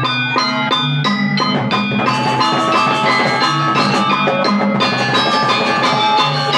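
Balinese gamelan gong ensemble playing: bronze metallophones and gongs ringing in fast, dense interlocking strokes over a steady low pulse, with drums. The texture grows fuller and brighter about two seconds in.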